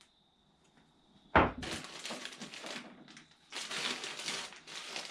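A single sharp knock as a part is set down, then crinkling and rustling of plastic packaging being handled, in two spells.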